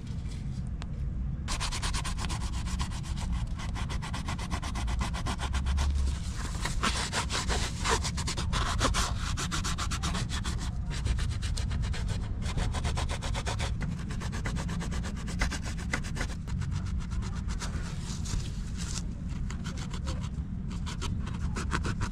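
Rapid back-and-forth scrubbing on a stained sneaker upper during cleaning. It starts about a second and a half in and keeps going with a few short pauses.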